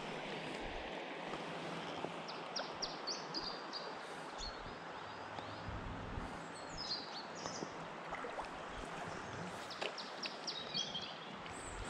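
Steady rush of river water flowing past, with small birds chirping in short bursts a few times.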